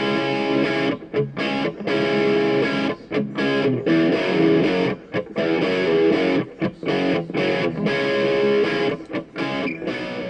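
Outro music led by guitar, playing in a choppy rhythm with frequent short breaks.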